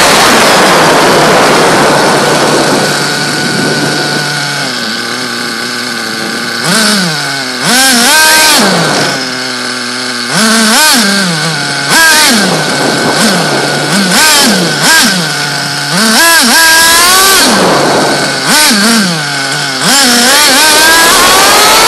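Small two-stroke engine of a fuel-powered radio-controlled car. It runs at high revs, drops to a steady idle, then is revved up and down in many quick throttle blips, and runs high again near the end.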